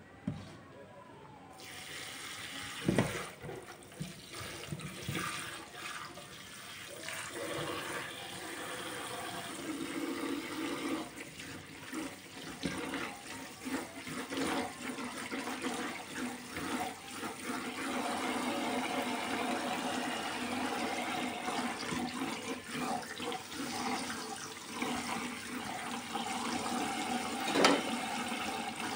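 Kitchen faucet water spraying onto bean sprouts in a plastic colander in a stainless steel sink while hands stir and rinse them. The water starts about two seconds in and grows fuller. A sharp knock about three seconds in and another near the end are the loudest sounds.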